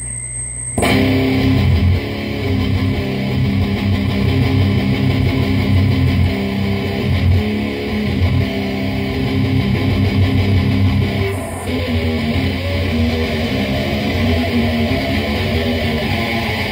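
Les Paul-style electric guitar tuned down to C standard playing heavy riffs through a Lone Wolf Audio Caveman distortion pedal at full gain, into the bright channel of a Fender Deluxe Reverb amp and a 2x12 cabinet. The tone is crushing, scooped death-metal distortion. The playing comes in about a second in.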